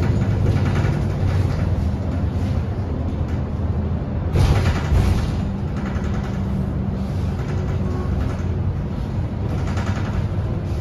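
MAN D2066LUH 10.5-litre six-cylinder diesel of a MAN 18.310 bus running with a steady drone, heard from inside the bus. A brief loud burst of noise comes about four seconds in.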